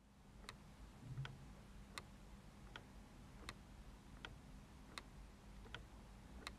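LEGO Technic pendulum clock's escapement ticking steadily at 80 beats a minute, one tick every three-quarters of a second, alternately louder and softer, as the pellets catch and release the escapement wheel.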